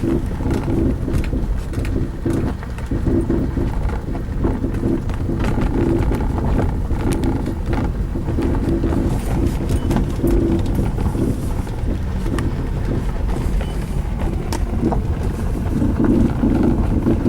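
Mazda 6 driving, a steady rumble of road noise with occasional irregular knocks from the front suspension. The knock is still there with the right inner CV joint rebuilt, so the CV joint is not what is knocking.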